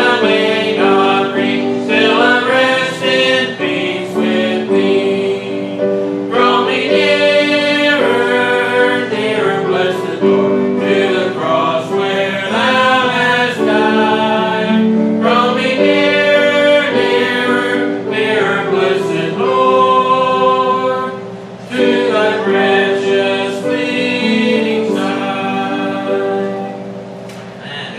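A church congregation singing a hymn together with instrumental accompaniment, the sound dropping away near the end as the verse finishes.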